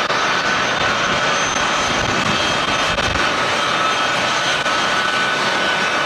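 Turbofan engines of lined-up C-17 Globemaster III transports running on the ground: a steady jet roar with a thin high whine held through it.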